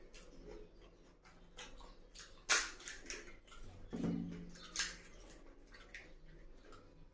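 Close mouth sounds of eating pani puri: wet chewing, lip smacks and small crunches, with sharp clicks, the loudest about two and a half seconds in. A brief low hum from the eater about four seconds in.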